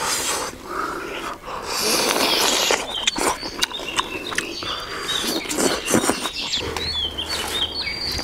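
Close-up chewing and lip-smacking of someone eating skewered fatty pork belly, with many wet mouth clicks. Small birds chirp repeatedly in the background from about three seconds in.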